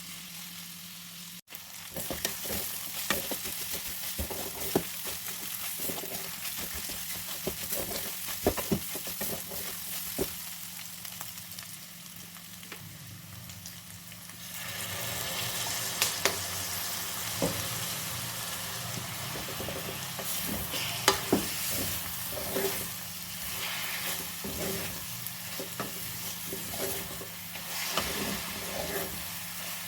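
Food sizzling as it fries in a pan, stirred with a utensil that knocks and scrapes against the pan now and then. The sizzle grows louder about halfway through.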